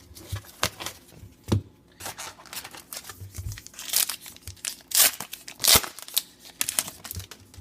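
A trading card pack wrapper being torn open and crinkled, a run of irregular sharp crackles and rips, loudest in the middle.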